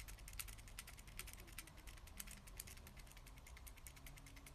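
Faint, rapid clicking of a Micropets toy bear's small geared mechanism running as the toy moves on a hand.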